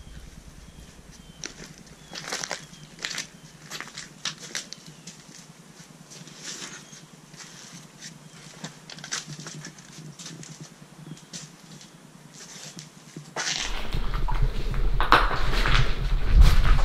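Footsteps crunching over rubble and debris, irregular crunches and clicks. About thirteen seconds in the sound gets louder, with a low rumble under denser crunching.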